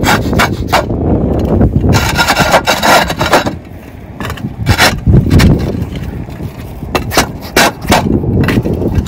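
Cement roof tiles knocking and scraping against each other as they are kicked up and shoved aside with a boot, along with boot steps on the tiles. The knocks come repeatedly, with a longer grinding scrape about two seconds in.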